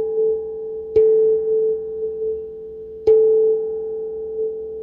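A bell struck twice, about a second in and about three seconds in, each strike ringing on in one clear, steady tone that slowly fades.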